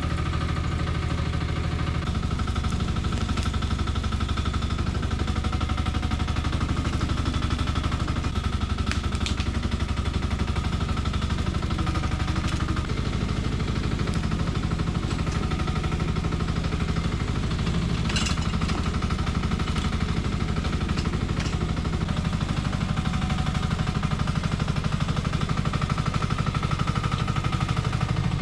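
Engine of a 1-ton Nuoman E10 mini excavator running steadily under work, with a fast even chugging pulse. A couple of sharp metallic clanks stand out, about a third of the way in and again near two-thirds.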